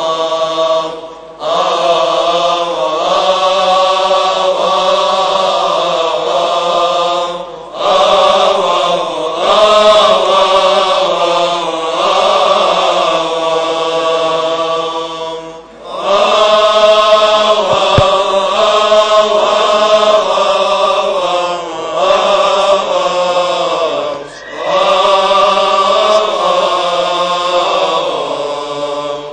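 Male voices chanting a Coptic Orthodox liturgical hymn in long, drawn-out melodic phrases, with short breaks for breath between phrases.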